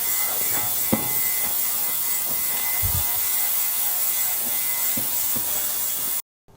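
Steady mechanical ratcheting whir that runs evenly, then cuts off suddenly near the end.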